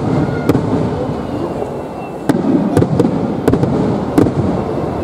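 Aerial firework shells bursting overhead: a string of sharp bangs, about six in five seconds, mostly bunched after a short lull, over a steady background din.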